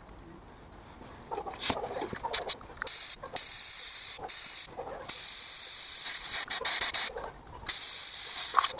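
Compressed air hissing through a paint spray gun on an air hose as its trigger is pulled. First come a few short puffs, then a string of longer blasts of a second or two with brief stops between.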